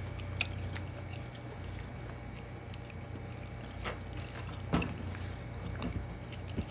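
Mouth and hand sounds of people eating with their fingers: scattered wet clicks and smacks of chewing and of fingers picking at rice, the sharpest about halfway through, over a steady low hum.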